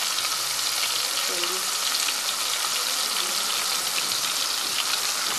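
Rice-flour-coated bombil (Bombay duck) pieces deep-frying in hot oil: a steady sizzle with fine crackling.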